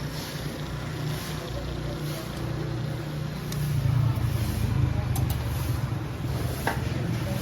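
Busy street ambience: a steady low engine hum of roadside traffic, with indistinct background voices and a few sharp clicks.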